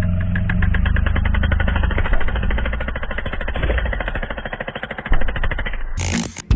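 Jackhammer hammering rapidly and steadily, a fast even stream of blows; it gives way to music about six seconds in.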